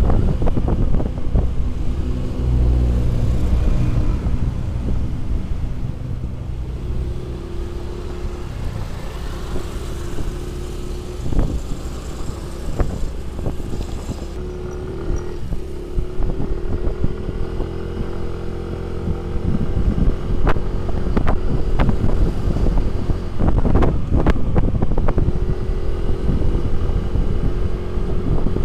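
Small motor scooter's engine running while riding, its pitch rising and falling with the throttle, under wind buffeting the microphone. A few sharp knocks come through in the second half.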